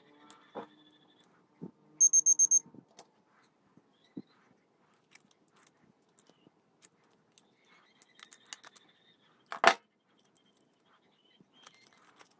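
Small crinkles and clicks of foil wrapping being peeled and pinched off a vape battery with fingers and pliers. About two seconds in there is a quick run of about six high chirping beeps. About three-quarters of the way through there is one sharp, loud crackle.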